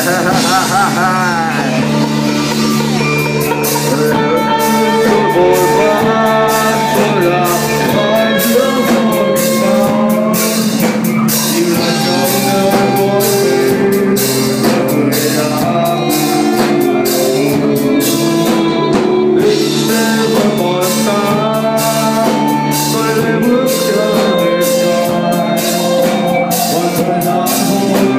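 Metal band playing live and loud: drum kit, bass guitar and electric guitar, with a singer's voice over them.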